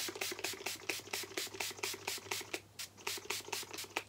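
Mario Badescu rose water facial spray, a fine-mist pump bottle, spritzed over and over in quick succession, about five short sprays a second, with a brief pause a little before three seconds in.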